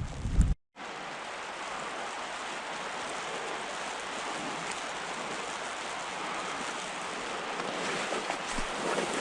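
Steady, even rushing noise outdoors, with a short break about half a second in.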